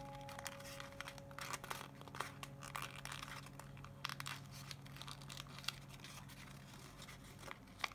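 Faint crinkling of origami paper as it is folded and pressed by hand, with scattered small crackles.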